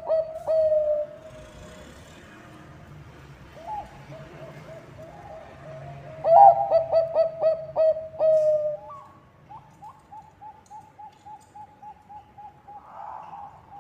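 Zebra dove (perkutut bangkok) cooing in runs of quick staccato notes, loudest about six to nine seconds in, followed by a fainter, slightly higher run of rapid repeated notes.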